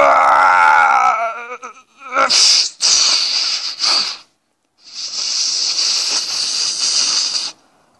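Cartoon soundtrack heard from a TV speaker: a long, wavering cartoon yell through the first second and a half, then two stretches of hissing, whooshing sound effects, each a couple of seconds long, with a short break between them.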